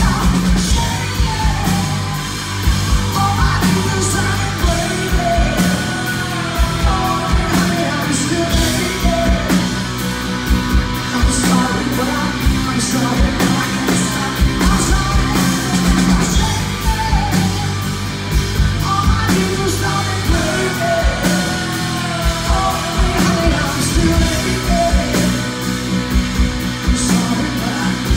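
Live rock band playing: a woman singing lead over guitars and a drum beat.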